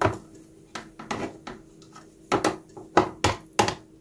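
Metal kitchen tongs clicking and tapping against a plastic container as pieces of boiled chicken breast are laid and pressed in: about ten sharp knocks at uneven intervals, the loudest cluster in the second half.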